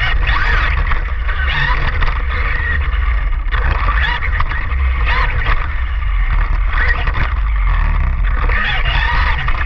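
An RC car on paddle tires driving in sand, its motor whine rising and falling with the throttle, over a heavy low rumble of wind and sand on the onboard camera.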